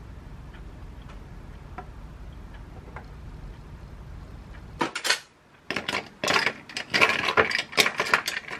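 Ice cubes clinking against a tall drinking glass as an iced almond-milk cold brew is stirred with a straw: a fast, irregular run of clinks begins about five seconds in, after a low steady hum.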